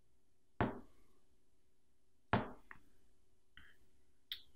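Two sharp knocks about two seconds apart, with a smaller click after the second and another near the end, from hand tools and cable being handled on a wooden table.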